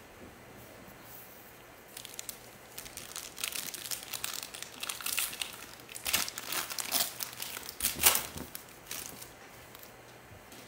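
A sealed trading-card pack wrapper being torn open and crumpled by hand: a run of crinkling crackles starting about two seconds in, loudest near the end.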